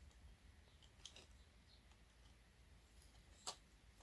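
Near silence with a faint low hum and a few faint handling clicks of small parts, one sharper click about three and a half seconds in.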